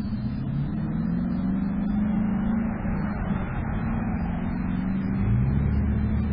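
Low engine drone with a steady hum that wavers slightly in pitch and glides upward about five seconds in.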